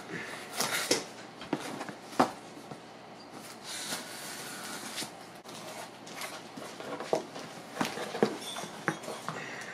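A small knife slicing and scraping along the packing tape of a cardboard shipping box, then the cardboard flaps being pulled open and handled, with scattered clicks, knocks and rustles.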